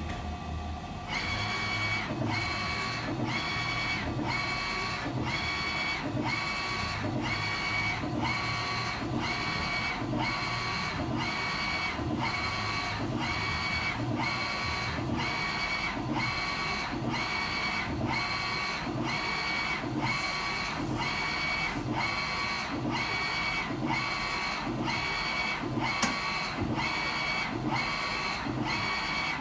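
Brother GT-361 direct-to-garment printer printing a shirt: the print-head carriage shuttles back and forth in a steady, even rhythm, each pass carrying a high motor whine. A single sharp click comes near the end.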